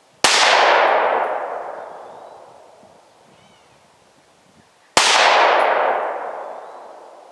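Two unsuppressed .223 rifle shots fired with supersonic loads, nearly five seconds apart. Each is a sharp crack followed by a long echo that fades over about two seconds.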